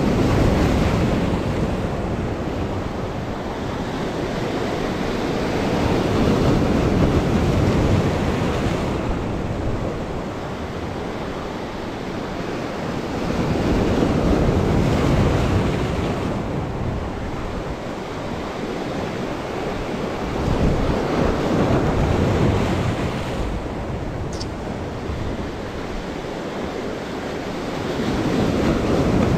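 Sea waves breaking and washing over the concrete armour blocks of a breakwater. The surf swells and ebbs about every seven seconds.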